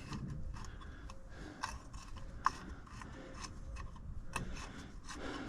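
Scattered light clicks and taps at an irregular pace, two of them a little sharper, about two and a half and four and a half seconds in, over a faint low rumble.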